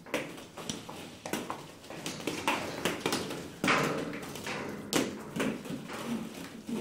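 Irregular light taps and thumps of hollow plastic ball-pit balls bouncing and knocking about, with a couple of louder knocks past the middle.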